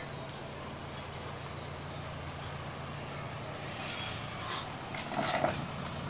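A motor vehicle engine idling with a steady low hum, and a few short clicks and knocks near the end.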